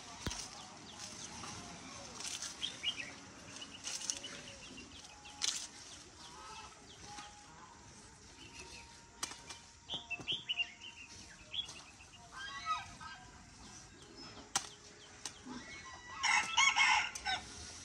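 Chickens clucking and small birds chirping around a farmyard, with scattered sharp snaps and chops as a machete trims grass stalks. Near the end a chicken gives a loud call of about a second and a half, likely a rooster crowing.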